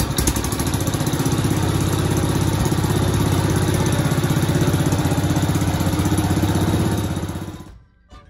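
Cub Cadet 147's single-cylinder Kohler engine running steadily with an even pulse, freshly filled with new oil. It dies away quickly near the end.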